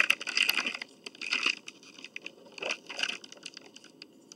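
Food wrappers crinkling and crackling as they are handled close to the microphone: three bursts of crackle with sharp clicks, the first at the start, then about a second and a half in, then near three seconds in.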